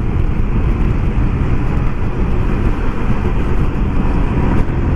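Steady wind rumble on the microphone while riding a Yamaha LC135 single-cylinder motorcycle at road speed, with the engine running underneath.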